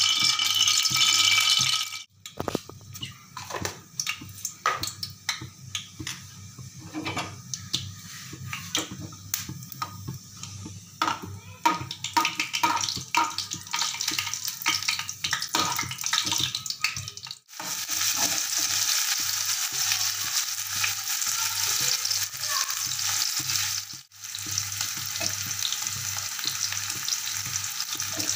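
A steel ladle stirring and scraping in an aluminium kadhai of hot oil, with many light clicks and knocks as a tempering is stirred, after a couple of seconds of music at the start. From a little past halfway, sliced onions and tomatoes frying give a steady sizzle, with one brief break near the end.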